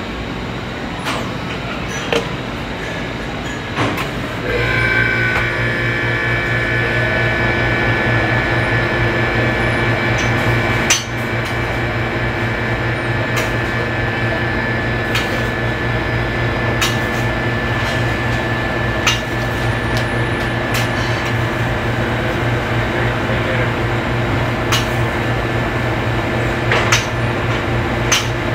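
Steady commercial-kitchen machine noise. About four seconds in, a motor starts and runs on with a steady hum and a high whine. Scattered clinks and knocks of metal utensils sound over it, from a spatula working on a flat-top griddle.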